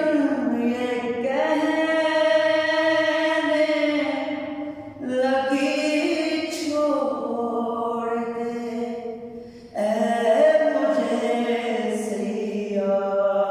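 A man singing an Urdu naat unaccompanied, in long held notes with ornamented bends of pitch. He sings three long phrases, with short pauses for breath about five and about ten seconds in.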